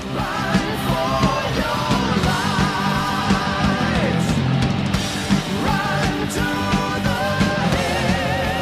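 Rock music with a singing voice over a steady beat, laid over the pictures as a soundtrack.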